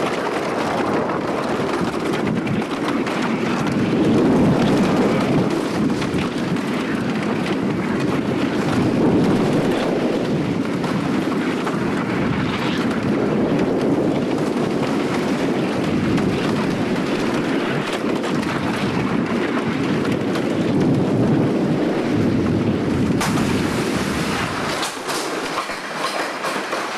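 Screechin' Eagle wooden roller coaster train rumbling and clattering over its wooden track, swelling and easing through the turns. Near the end the low rumble falls away as the train slows into the station.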